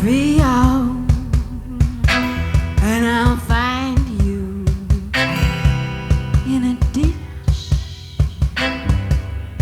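Rock band playing: a drum kit keeps a steady beat under guitar, with a melody line that slides up and down in pitch.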